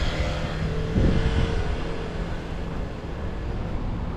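Road traffic: a motor vehicle passing close by with a steady engine hum that fades out about three and a half seconds in, over a low rumble of tyres and wind on the microphone.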